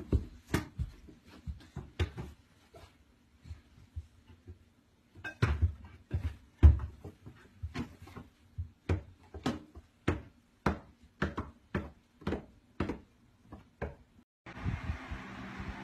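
Irregular sharp knocks and clatter, about one or two a second, from a toddler climbing about in a wooden kitchen cupboard and bumping its shelf and the things in it. Near the end this gives way to the steady whoosh of an electric fan with a few soft thumps.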